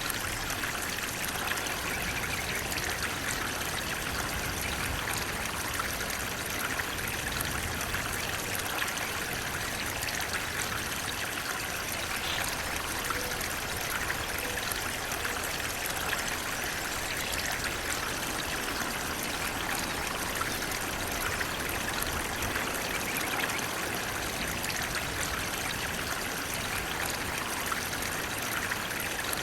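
Flowing water running steadily, an even rush of a stream or small waterfall with no change or break.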